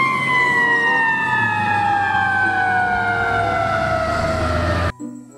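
Fire engine siren: one long tone sliding slowly down in pitch over a low rumble, cutting off suddenly near the end.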